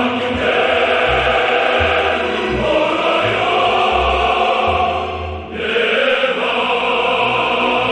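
A Korean song sung in an operatic, choral style over orchestral accompaniment, with a short break between phrases about five and a half seconds in.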